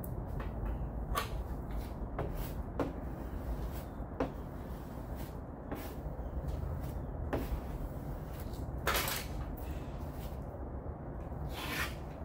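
Plastic body-filler spreader scraping polyester putty across a car's sheet-metal quarter panel: short, irregular strokes and clicks, two longer scrapes about nine seconds in and near the end. A steady low hum runs underneath.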